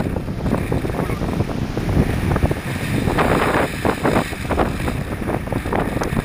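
Strong wind buffeting the microphone over rushing, splashing water as a Hobby 16 catamaran sails hard in high wind, with a burst of spray splashes a few seconds in.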